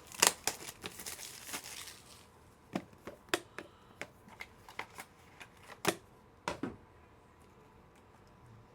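Trading cards and their plastic holders being handled on a table: about two seconds of rustling, then scattered sharp clicks and taps that stop about seven seconds in.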